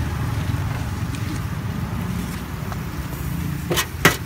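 Steady low hum of street traffic around a frying griddle. Near the end come two sharp metal clacks, a spatula striking the steel griddle.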